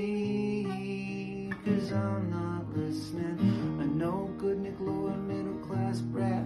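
Steel-string acoustic guitar played solo, strumming and picking chords that ring on and change about once a second, in an instrumental break of a song.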